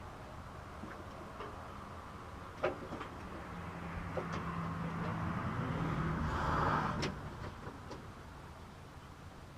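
John Deere 110 backhoe's engine running, its revs rising over a few seconds and then settling back, with a couple of sharp metallic clicks.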